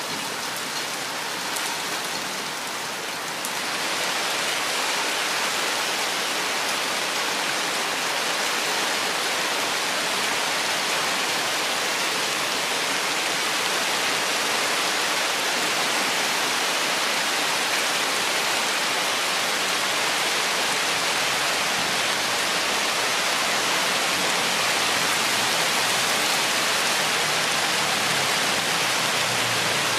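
Steady rainfall, a dense even hiss of falling rain that grows a little louder about three to four seconds in. A faint low rumble begins to build near the end.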